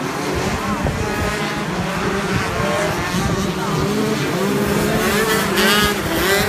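Two-stroke shifter kart engines at racing speed, their pitch rising and falling with the revs. A sharp climb in revs comes near the end.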